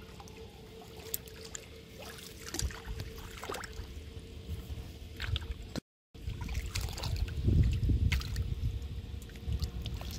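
Shallow water sloshing and splashing, with scattered small clicks of handling a hand line and hook. The sound drops out briefly about six seconds in, then the sloshing is louder.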